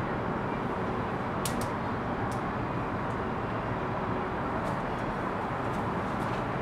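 Steady outdoor urban background noise: a continuous low rumble and hiss, with a few short faint clicks scattered through it.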